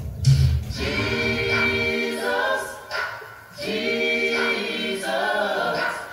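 Choir singing a gospel song in two long held phrases, with a short break about three and a half seconds in.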